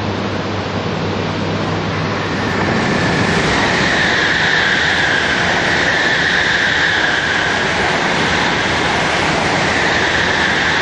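E4 series double-decker Shinkansen passing at speed close by: a loud, steady rush of wheels and air that grows a little louder, with a stronger hiss, about two and a half seconds in.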